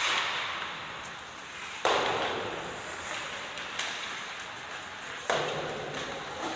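Three sharp hits, each followed by a noisy echoing tail that fades over a second or more, with a smaller click between the second and third.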